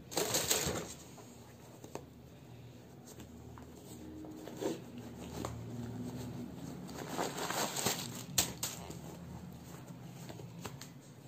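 Rustling of tissue wrapping paper and handling of a mesh sports shoe in its cardboard box, in short bursts with a few light taps: strongest at the start and again in the second half.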